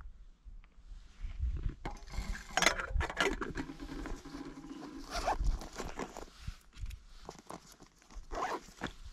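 Backpack zipper being pulled and the pack's fabric rustling as hands rummage in it, in a run of rasping strokes from about two seconds in, with a second short bout near the end.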